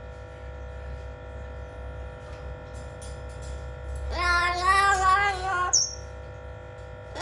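Blue-fronted Amazon parrot giving one drawn-out, pitched call about four seconds in, then a brief high squeak.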